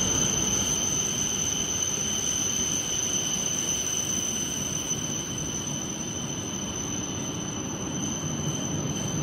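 E5 and E6 series Shinkansen coupled together, rolling past the station platform. It gives a steady low rumble and hiss of wheels and running gear under a steady high-pitched whine.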